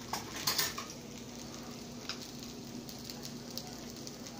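Egg fried rice sizzling gently in a nonstick pan, with a few scrapes and taps of a metal spatula against the pan, most of them in the first second.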